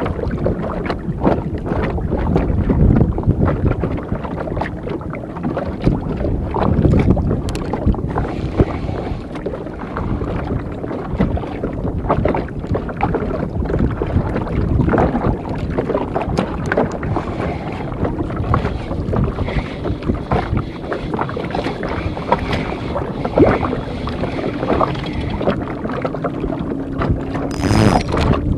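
Water lapping and slapping against the hull of a small wooden outrigger boat, with wind buffeting the microphone and many short sharp knocks throughout. A brief, sharper splash-like burst comes near the end.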